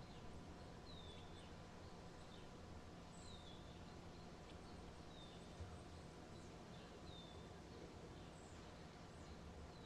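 Faint bird chirps, a short falling note repeated about every two seconds, over a quiet steady hum.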